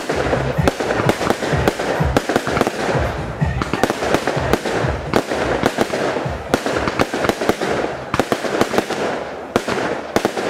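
Aerial fireworks bursting in rapid succession: a continuous run of bangs and crackles with no real pause.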